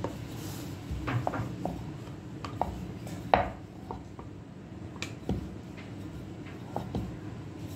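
Metal spoon spreading sauce over a flatbread on a wooden board: a few scattered light clicks and knocks as the spoon scrapes and taps, the loudest about three seconds in.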